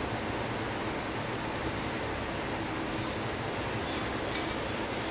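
A tempering of mustard seeds, hing and turmeric in hot coconut oil sizzling steadily in a pot, with a few faint ticks as the mustard seeds begin to crackle.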